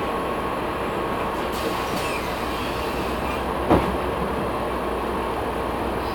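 Cabin noise inside a LiAZ 6213.22 articulated city bus as it drives along: a steady rumble of engine and road, with a faint steady whine. One short knock comes a little past halfway, like the body jolting over a bump.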